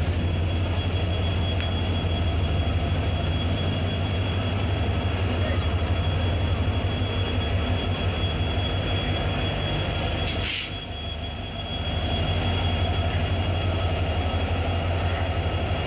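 A WDP4D diesel-electric locomotive passes close by at low speed as it pulls away. Its EMD 16-cylinder two-stroke engine gives a deep, pulsing rumble, with a steady high-pitched whine over it. About ten seconds in there is a brief hiss, and the rumble dips for a second or so.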